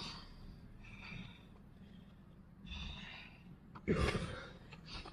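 Heavy breathing of a person doing burpees, with sharp exhales, the loudest about four seconds in.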